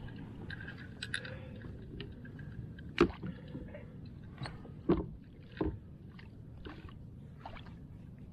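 Gear being handled aboard a kayak: scattered light clicks and rattles, and three sharp knocks against the boat, the loudest about three seconds in, over a low steady rumble.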